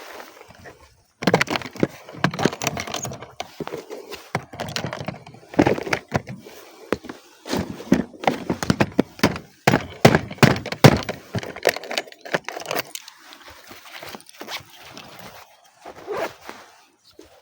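An irregular run of knocks, thuds and cracks, like handling and moving about.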